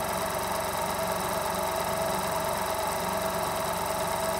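Juki DDL-9000c industrial lockstitch sewing machine running steadily at speed, free-running with no needle, presser foot or needle plate fitted, its rotary hook spinning for an oil-splash check.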